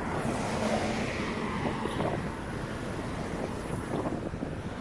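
Wind rushing over the microphone on an open seafront, a steady noise strongest in the low range, with a few faint footsteps.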